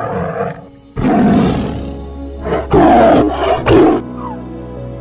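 Lion roaring, a run of rough roars with the loudest near the end, over soft background music; the roars stop about four seconds in.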